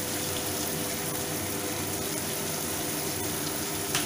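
Tomato and spice masala frying in an aluminium kadai, a steady sizzle, with one short click near the end.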